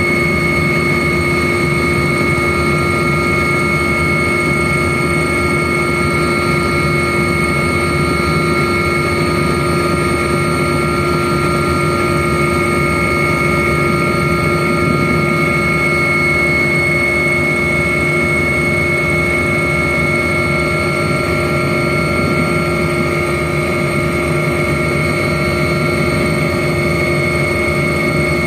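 Aircraft engine running steadily, heard from on board: a constant rumble with several steady whining tones on top.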